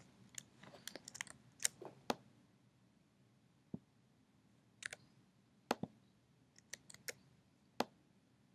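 Faint, scattered clicks of a computer mouse and keyboard, about a dozen at irregular intervals, some in quick pairs.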